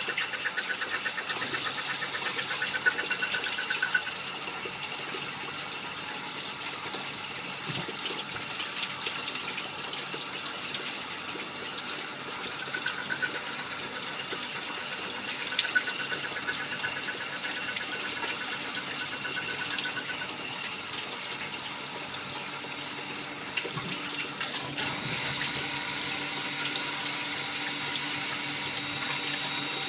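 Compound automatic lathe turning small-diameter parts: a steady rush of cutting coolant splashing over the work, with a faint steady high machine whine and a few sharp clicks.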